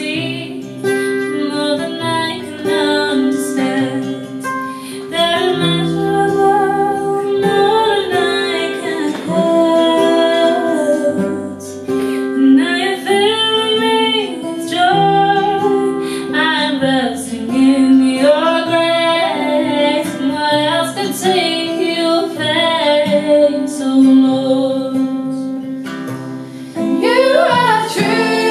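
Women's voices singing a gospel worship song with acoustic guitar accompaniment.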